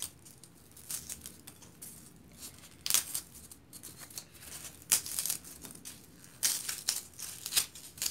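Styrofoam block being broken and torn apart by hand into small pieces: irregular crackling and tearing, with louder snaps about three, five and six and a half seconds in.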